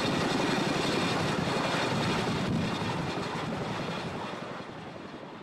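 Boeing CH-47 Chinook tandem-rotor helicopter in flight, a steady rushing rotor and engine noise that fades away over the last two seconds.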